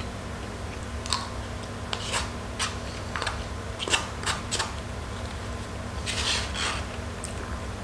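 Plastic spoon scraping and clicking against the inside of a small paper side cup: a run of short scrapes in the first half, then a longer scrape a little after six seconds, over a steady low hum.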